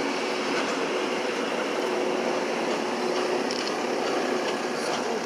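Jet engines of a taxiing Airbus A320-family airliner running at idle, heard from a distance as a steady rushing hiss with a faint hum.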